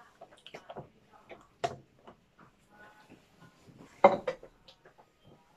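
Scattered light clinks and knocks of plastic cups and utensils handled on a tabletop while making milk tea, the loudest a sharp knock about four seconds in.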